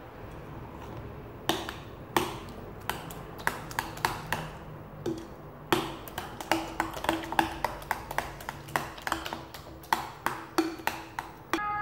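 Metal spoon clinking against the side of a ceramic bowl while stirring raw eggs with diced zucchini and spices: a quick, irregular run of taps, some with a short ring from the bowl.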